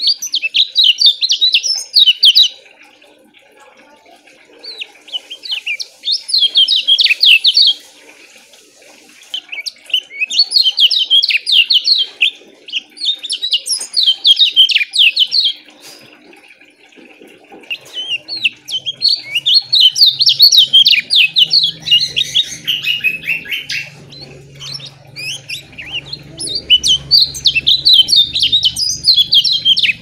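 Lemon-bellied white-eye (kecial kuning) singing in bursts of rapid, tightly packed high chirping notes. There are about six phrases of two to five seconds each, separated by short pauses.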